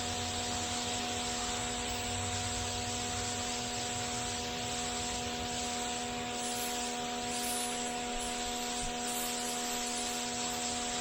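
Pressure washer running steadily: a constant hum from its motor and pump under the even hiss of the high-pressure water spray hitting concrete.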